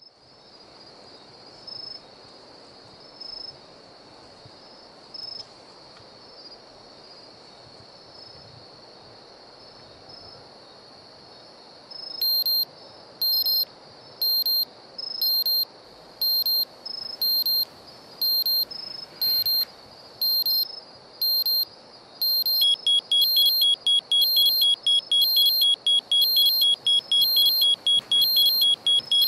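Electronic alarm beeping from digital alarms, among them a Polar heart-rate wristwatch: a few faint high beeps at first, then from about twelve seconds in a louder beep about once a second. About ten seconds later a second, rapid high beeping alarm joins it.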